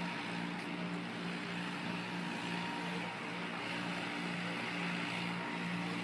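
A steady motor drone over a hiss, its low hum pulsing at an even pace.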